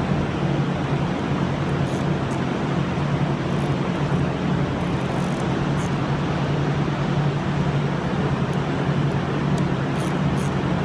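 Steady low hum and rumble of workshop background noise, with a few faint light clicks scattered through it.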